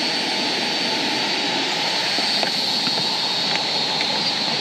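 Steady, even rush of falling water from Cedar Falls waterfall.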